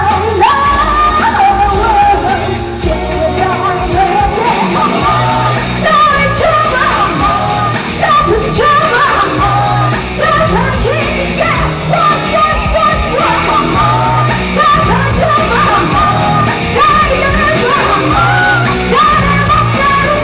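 Live pop-rock band playing loudly over a PA, with a female lead singer's vocals over driving bass and drums.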